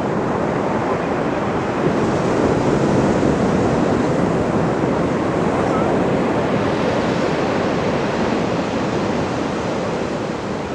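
Ocean surf: a steady rush of waves breaking and washing on the shore. It swells about two seconds in and slowly eases off.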